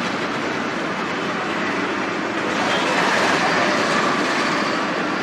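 Steady noise of vehicles passing on a bridge, an even rumble without distinct strokes.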